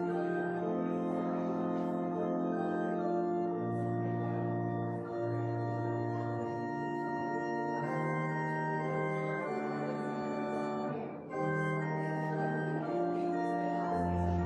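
Organ playing slow, sustained chords that change every second or two, with a brief break between phrases about eleven seconds in.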